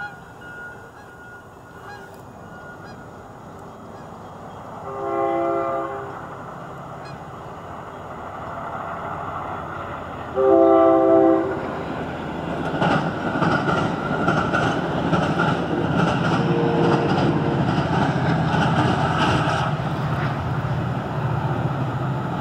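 Metra commuter train sounding its horn twice in chord blasts as it nears the crossing, the second blast the loudest. Then the train passes close by with a steady rumble and rapid clickety-clack of wheels over the rails.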